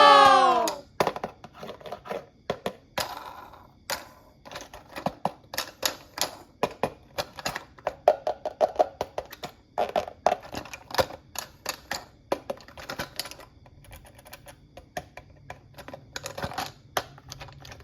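A cartoon 'boing' sound effect fading out in the first second, then many quick, irregular clicks and taps of hard plastic toy pieces being handled and knocked together.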